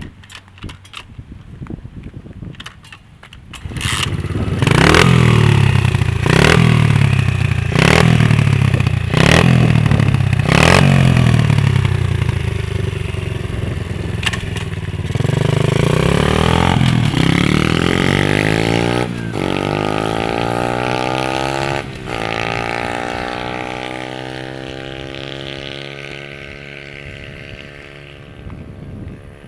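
A 70cc dirt bike engine catches a few seconds in and is revved in about five sharp blips. It then runs on under load, changing pitch with two breaks a little past the middle, and gets quieter toward the end.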